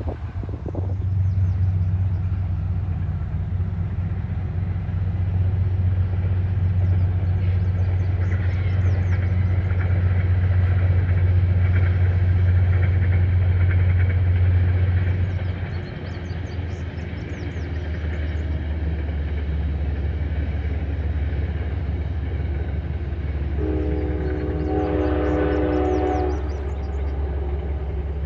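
Distant passenger train running along the far riverbank: a steady low rumble that drops off sharply about 16 seconds in, then the train's horn sounding one chord for about three seconds near the end.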